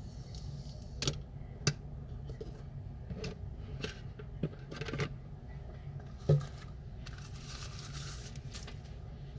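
Small tools and iPhone 6S parts being handled during a battery replacement: scattered light clicks and taps, one louder knock about six seconds in, and a scratchy rustle near the end, over a faint steady low hum.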